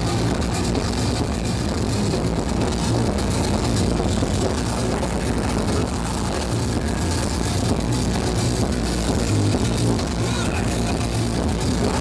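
Industrial metal band playing live through a festival PA, with guitars and drums, loud and steady without a break, heard from within the crowd.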